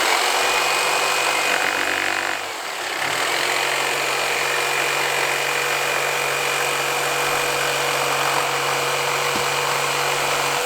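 Electric power saw cutting through a wooden plank. The motor runs at a steady pitch, eases off briefly about two and a half seconds in, then cuts on steadily and stops near the end.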